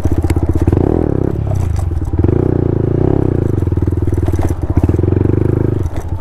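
Yamaha MT-15 single-cylinder motorcycle engine with a full-system exhaust running under way at fairly steady revs. The revs dip briefly about a second and a half in and drop again right at the end as the throttle is eased.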